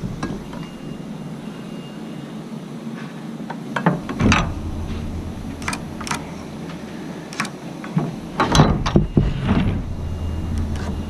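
Metal speed square, pencil and hands knocking and clicking against wooden wall plates during stud layout: scattered sharp knocks, with a cluster of louder ones about three-quarters of the way through, over a low steady rumble.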